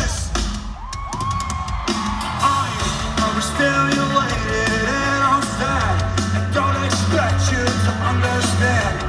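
Live pop-punk band playing: drums, electric guitars and a lead singer, heard from the crowd at a concert. Near the start the band thins out for a moment, then comes back in full.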